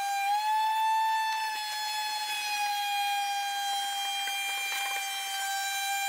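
Shop vacuum motor running with a steady high whine, its pitch lifting briefly about half a second in and then settling back, as it sucks standing water out of a dishwasher sump.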